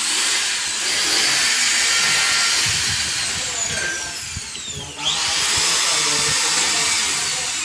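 Handheld power drill running in long trigger pulls against PVC wall panelling. It stops about five seconds in, then spins back up for a second run.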